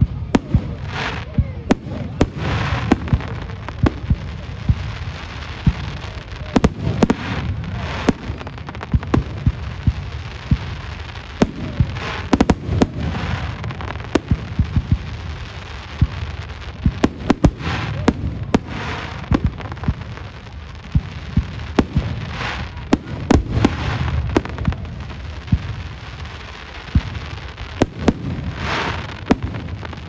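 Aerial fireworks bursting overhead: a rapid, irregular series of sharp bangs and crackles, packed closely together at times.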